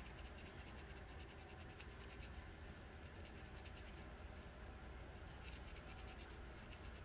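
Faint, rapid scratching and fine ticking of a three-prong crochet needle hooking and pulling through a lock of kinky human hair as a dreadlock is formed.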